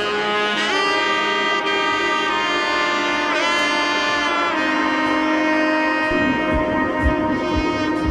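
Background music: a sustained, bending lead melody that sounds like saxophone, joined by a steady kick-drum beat about six seconds in.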